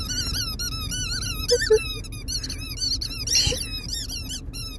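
A German Shepherd chewing a rubber squeaky toy, making it squeak over and over in a fast, continuous run of short, high squeaks, with a short noisy burst about three and a half seconds in.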